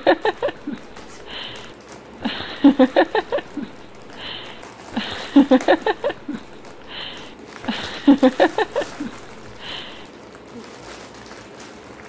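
A short phrase of background music repeating about every three seconds and stopping about ten seconds in, over faint crinkling of foil snack packets and crunching of Kurkure as they are eaten without hands.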